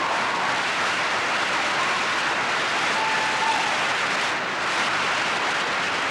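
Audience applauding: dense, steady clapping, with a faint whistle or two.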